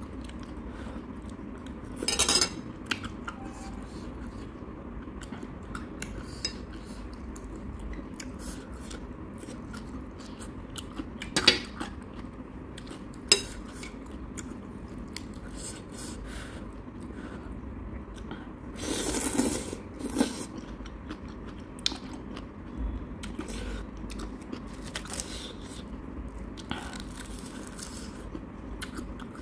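Close-miked eating of instant noodle soup: metal chopsticks and a spoon click and scrape against the bowl, with chewing and two longer noisy bursts of about a second, one about two seconds in and one about two-thirds through. A steady low hum runs underneath.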